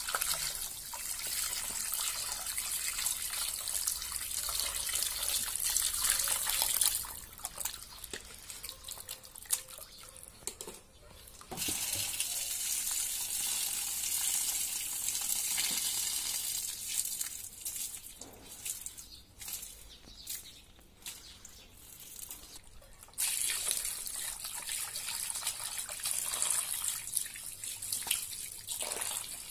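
Water poured from a plastic jug splashing into a steel bowl of raw pork pieces as the meat is washed by hand. It comes in three long stretches, with quieter spells of wet handling between.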